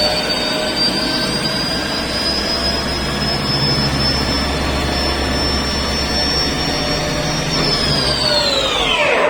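CNC turning-milling centre spindle running with a steady high whine that creeps slightly up in pitch, then winds down in a falling whine near the end as the spindle stops.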